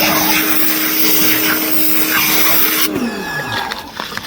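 A power tool motor running steadily with a loud hiss, then switched off about three seconds in, its pitch falling as it winds down.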